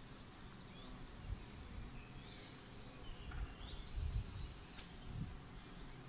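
Faint outdoor ambience: a few faint bird chirps about halfway through, over a soft hiss, with occasional low rumbles on the microphone.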